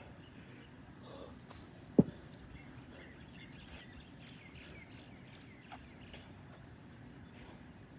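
A 25-pound kettlebell set down hard on the ground, landing with one heavy thud about two seconds in. Faint bird chirps sound in the background.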